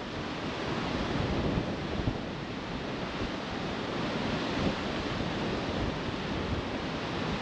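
Steady wash of sea surf on the beach, with wind buffeting the microphone.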